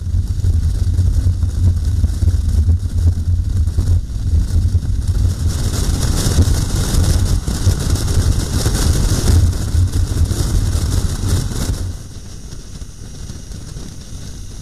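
Motorcycle riding at speed: wind buffeting the camera microphone over the engine and road noise, a heavy low rumble with a hiss on top. It drops to a quieter, lighter rumble near the end.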